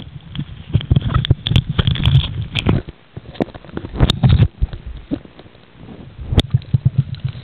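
Water sloshing and bubbling around a handheld camera moving underwater and up to the surface, with irregular knocks and clicks from the camera being handled, over a churning low rumble.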